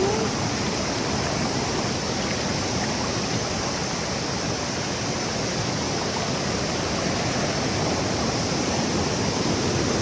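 Steady rushing of flowing water at a waterfall.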